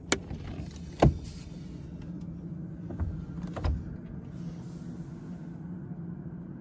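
A few sharp clicks and knocks as a Scania S450 truck's cab door is opened, over a steady low hum.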